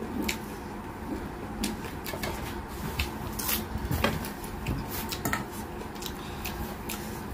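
Close-up eating sounds of a person chewing fried chicken with the mouth open, with a scatter of short irregular clicks, smacks and crackles as the crisp chicken is pulled apart by hand, over a steady low hum.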